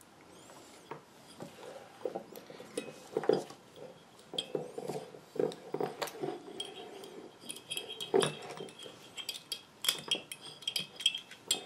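Small metal hardware and hand tools clinking and scraping as a bolt is worked into a snow plow light's mount: irregular light taps and clicks, with short metallic rings in the second half.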